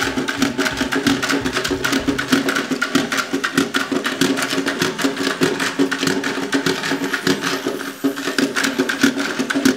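Battery-powered Chubby Puppies and Friends lop-eared bunny toy running: a small electric motor and gears buzzing steadily, with rapid clicking and clattering as the plastic toy hops on a wooden tabletop.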